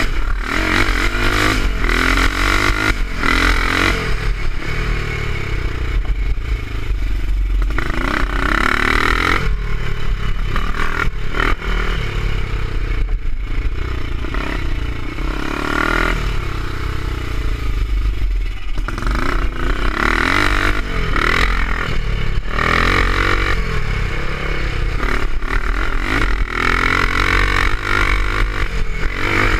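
350 BSA scrambler's single-cylinder four-stroke engine ridden hard in a race, revving up and dropping back again and again as the throttle is opened and shut, heard onboard from the rider's helmet.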